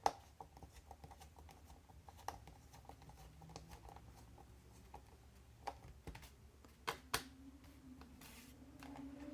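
Faint scattered clicks and taps of a small screwdriver and screws as a laptop's bottom cover is screwed back on, with a few sharper clicks around two seconds in and near seven seconds. A faint low hum starts near the end.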